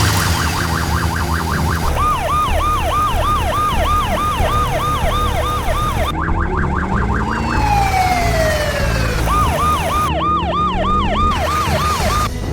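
Emergency-vehicle siren sound effect: a fast warble, then a yelp of short rising-and-falling sweeps about three a second, broken around the middle by a long falling glide before the yelp resumes. A steady low rumble runs underneath.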